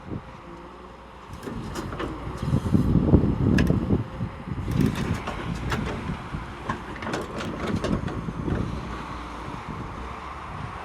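A motor vehicle's engine rumbling unevenly, with scattered clicks and knocks, several close together from about five to eight seconds in.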